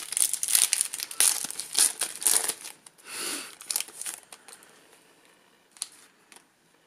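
Foil booster-pack wrapper being torn open and crinkled by hand, a dense crackling for the first two and a half seconds. It then eases into lighter rustling as the cards are slid out, with a few faint ticks near the end.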